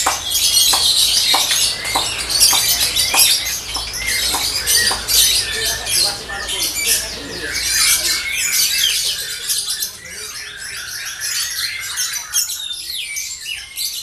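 Many caged lovebirds chattering at once in rapid, high-pitched chirps and trills, thinning out somewhat near the end.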